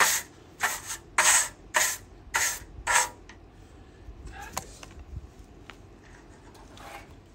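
A blade scraping wood in quick, even strokes, about five of them roughly half a second apart, then only faint ticks and light scrapes after about three seconds.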